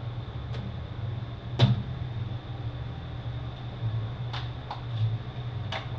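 Several short, sharp clicks and knocks of small manual-transmission parts and tools being handled on a workbench, the loudest about a second and a half in. A steady low hum runs underneath.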